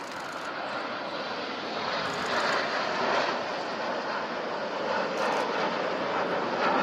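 A formation of BAE Systems Hawk T1 jets flying past, the steady rushing noise of their Adour turbofan engines, swelling a little about two seconds in and again near the end.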